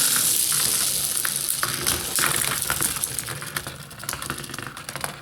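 Bakugan toy balls rolling across a play mat: a rolling hiss that fades away over a few seconds, with scattered plastic clicks and ticks.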